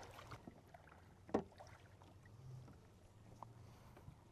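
Faint kayak paddle strokes through calm water, with one sharp knock a little over a second in.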